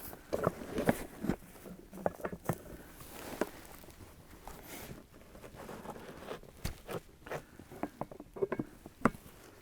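Footsteps and handling in tall dry grass: irregular rustling with many sharp crackles and clicks.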